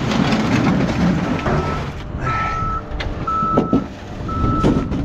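Back-up alarm of a reversing vehicle beeping about once a second, over the loud running of heavy machinery, with a couple of sharp metal clanks.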